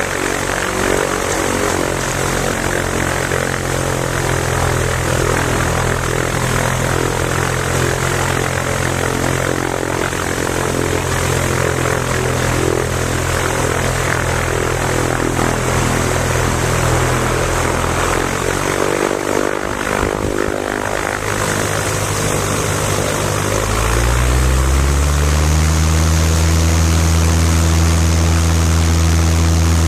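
Piper Super Cub's piston engine and propeller running steadily at low power. About twenty seconds in the note breaks up and wavers for a couple of seconds, then the pitch rises and settles into a louder, steady full-power drone, the power coming up for the take-off run.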